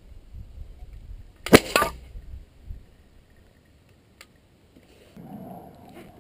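Homemade PVC combustion potato cannon firing on starting-fluid vapour. A single loud, sudden bang comes about a second and a half in and trails off within half a second.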